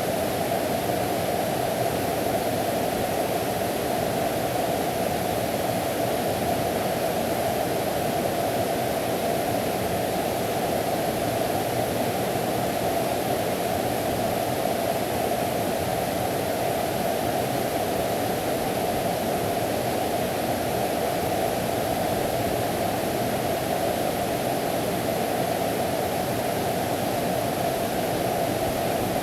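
Mountain valley stream rushing, a steady even sound with no breaks.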